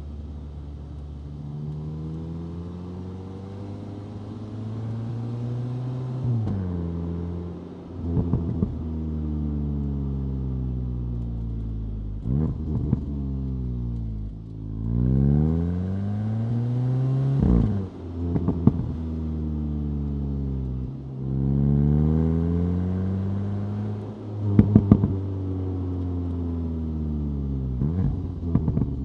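Stock 2025 VW Golf GTI 8.5's 2.0-litre turbocharged four-cylinder accelerating through the gears, its pitch climbing and then dropping at each upshift about half a dozen times. Short bursts of exhaust pops and crackles come with several of the shifts.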